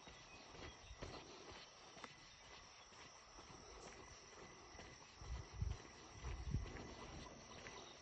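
Faint steady chirring of insects in the surrounding vegetation, with a couple of low thumps about five and a half and six and a half seconds in.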